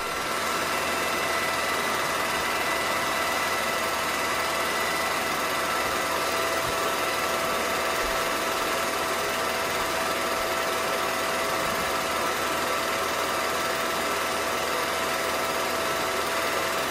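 Film projector running: a steady mechanical whir with a few constant high tones through it, unchanging throughout.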